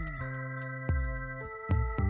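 Background music: sustained electronic keyboard chords over a steady beat.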